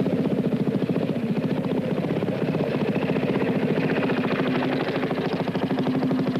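Trials motorcycle engine running at low revs, with a steady, rapid beat of firing pulses.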